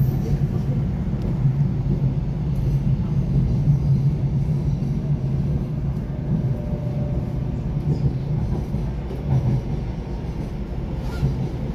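Running noise heard from inside a moving electric passenger train: a steady low rumble of the wheels and running gear on the track, with a few faint clicks.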